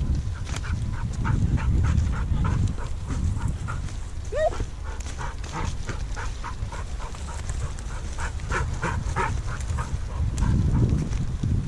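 Herding dog panting close by in a quick, even rhythm, about three breaths a second, over a low rumble of wind and walking on the field. About four seconds in, a single short animal call rises and falls.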